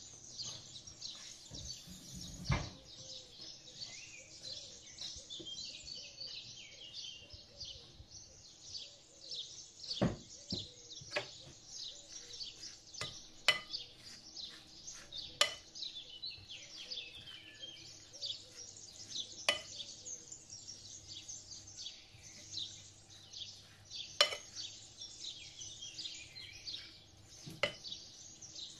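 A wooden spoon stirs grated beetroot and carrot salad in a ceramic bowl, giving scattered sharp clicks where it knocks the bowl. Many small birds chirp constantly behind it.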